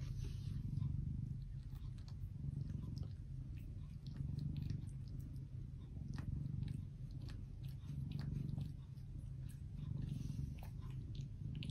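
Cat purring steadily, swelling and fading about every two seconds, with the quick wet clicks of another cat licking its head.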